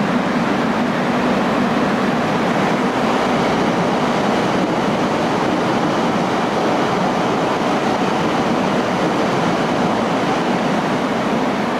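Korail ITX-Saemaul electric multiple unit (Hyundai Rotem 210000-series cars) passing through the station at speed: a steady rush of wheel-on-rail and running noise.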